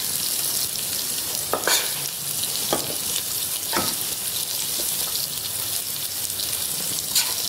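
Thick fish masala sizzling steadily in a pot on the stove, with a few light knocks as fried anchovies are scooped out of it.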